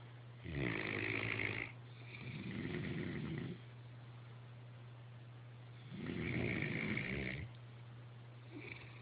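Sleeper snoring: two loud rasping snores about five seconds apart, each about a second and a half long, the first followed at once by a softer, longer one. A steady low hum runs underneath.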